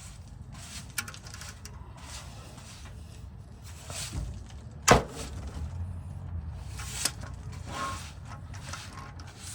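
Hand tools clinking on metal in scattered short clicks, with one sharp knock about five seconds in, as a socket wrench with an extension is worked on the oil filter housing cap.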